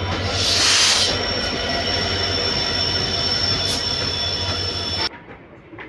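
WDP4D diesel locomotive and its coaches passing close along the platform: the engine's low throb under a steady high-pitched wheel squeal, with a burst of hiss about half a second in. About five seconds in the sound cuts off suddenly to a much quieter rumble.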